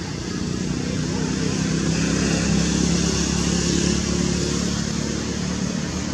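A motor vehicle's engine, growing louder to a peak about halfway through and then fading as it passes.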